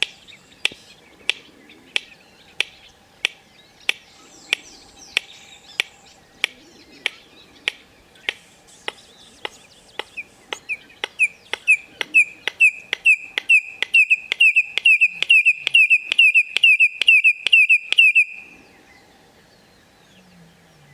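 Red-crested korhaan's display call: a slow series of sharp clicks that quickens, then breaks into a fast run of loud, piercing whistled notes, about three a second. The whistles stop abruptly.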